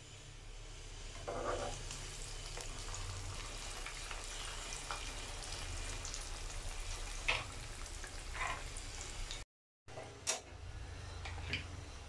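Chicken spring rolls (lumpiang shanghai) deep-frying in hot oil in a wok, a steady sizzle and bubbling, with a few sharp clicks of a metal turner against the pan. The sound cuts out briefly about nine and a half seconds in.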